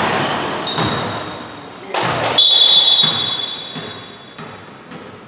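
Basketball thuds echoing in a gym, then a loud, shrill referee's whistle blast about two and a half seconds in that fades away.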